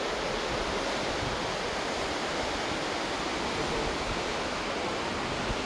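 Steady rushing of glacial meltwater, a continuous even roar of fast-flowing water.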